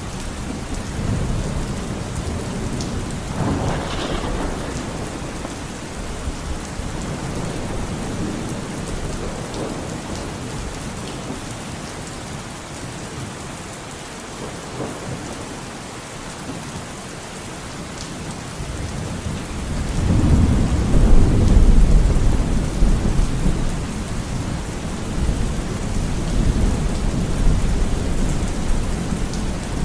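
Steady rain falling through a thunderstorm, with rolling thunder. A short crack of thunder comes about four seconds in, and a long, deep rumble swells about two-thirds of the way through, the loudest moment.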